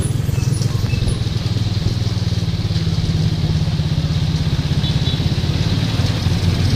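Vehicle engine running steadily while driving, a low, rapidly pulsing rumble with road noise.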